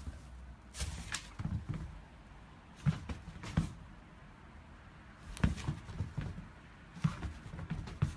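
Shiba Inu moving and hopping about on a hard floor: irregular clusters of sharp taps and low thumps in a small room.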